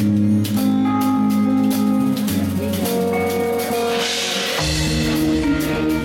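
Live band playing a pop song's instrumental introduction over a stage PA, with drum kit and guitar over held notes. A cymbal swell rises about four seconds in, and a deep bass part comes in just after it.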